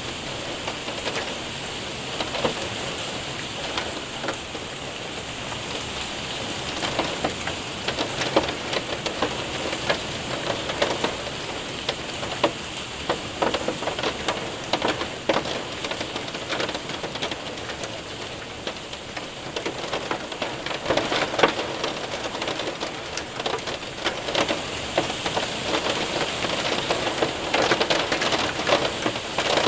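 Hail and rain hitting a window and roof: a steady patter of rain with many sharp ticks of hailstones striking.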